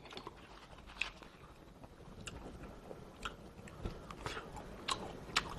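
Close-miked eating sounds: a person quietly chewing braised pork rib meat, with a handful of sharp clicks scattered through.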